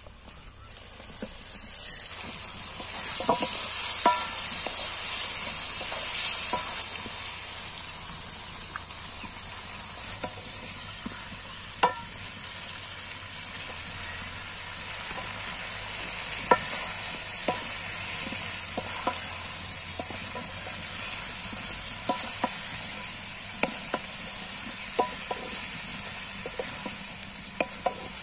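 Cut potatoes and vegetables frying in hot oil and masala in a metal kadai. The sizzle swells over the first couple of seconds as they go into the pan, then carries on steadily while they are stirred with a wooden spatula, with scattered sharp taps of the spatula against the pan.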